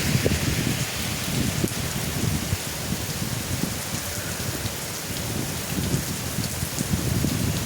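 Heavy rain pouring steadily in a downpour, with many separate drops striking close by.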